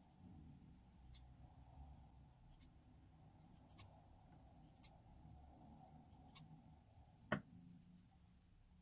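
Quiet handling of slime-making materials: scattered light clicks and taps over a faint low hum, with one sharper click about seven seconds in.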